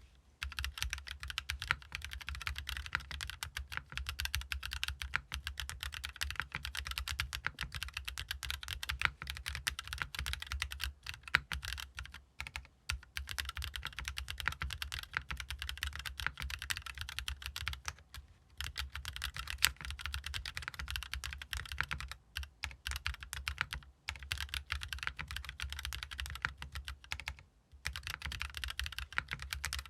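Fast, continuous typing on a GEON F1-8X mechanical keyboard with Haimu RAW switches, an aluminium plate, O-ring mount, no foam and ABS double-shot keycaps: a steady stream of key clacks with a low thock under each press, broken by a few short pauses.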